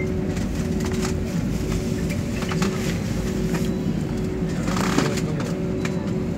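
Jet airliner cabin noise as the plane rolls on the ground after landing: steady engine hum and rumble with two steady tones, broken by scattered light clicks and rattles and a short hiss about five seconds in.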